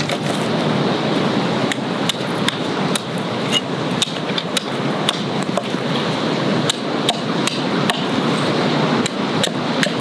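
Hatchet chopping the end of a green stick to a point against a wooden stump: sharp knocks about twice a second over a steady hiss.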